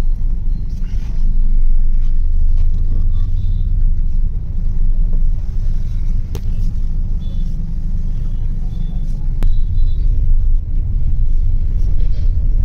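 Steady low rumble of a car's engine and road noise heard from inside the cabin, with two sharp clicks, one about six seconds in and another about three seconds later.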